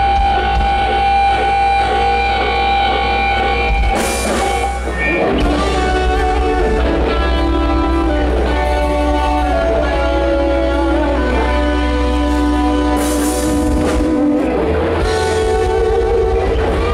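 Live rock band: electric guitars playing long held lead notes that bend in pitch, over bass and drums, loud and heavy in the low end. Cymbals crash about four seconds in and again near thirteen seconds.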